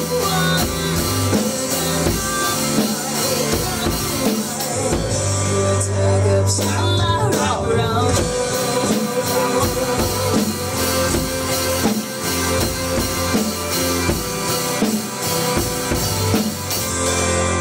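Acoustic drum kit played along to a recorded song: drum strokes and cymbal crashes over a backing track with guitar and vocals.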